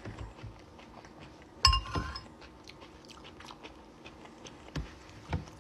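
Close-up chewing of a mouthful of rice salad, with small wet mouth clicks throughout. About a second and a half in, a metal fork clinks once against the glass bowl and rings briefly.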